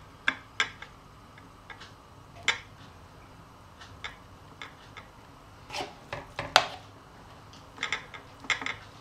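Metal spoon clinking and scraping against a ceramic plate and the aubergine shell while stuffing is spooned in: irregular sharp clinks, more of them in the second half, the loudest about six and a half seconds in.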